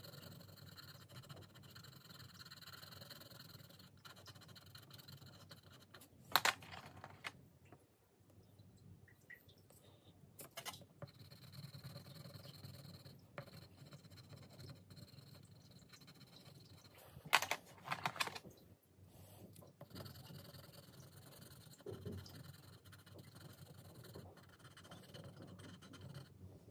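Shuttle Art colored pencil scratching on paper as swatch boxes are shaded in, with sharp clicks about six seconds in and again around seventeen to eighteen seconds in.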